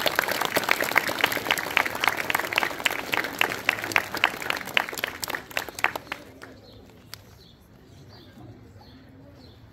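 Audience clapping as the children walk on, dying away about six seconds in. Faint bird chirps follow in the quiet.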